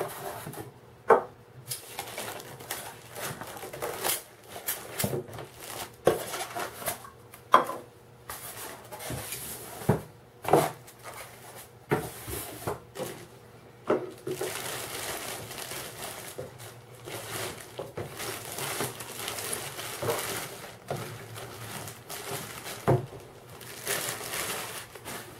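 Handling and unpacking a contact grill from its box: irregular knocks and clicks of the appliance and packing being moved, with rustling of packaging between them.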